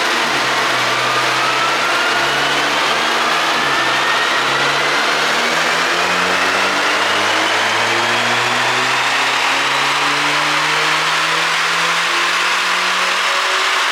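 2009 Mini Cooper S's turbocharged 1.6-litre four-cylinder engine pulling under load, its revs climbing slowly and steadily, with a thin high whine rising with the revs over a steady rushing noise.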